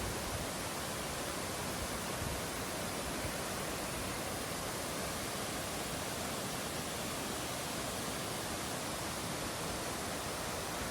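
A waterfall with a 25 m drop, a steady, even rushing of falling water.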